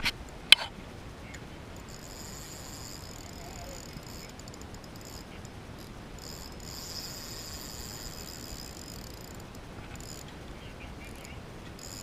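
Insects buzzing steadily and high-pitched, the sound fading in and out, over a low hiss of wind and water. A single sharp knock about half a second in.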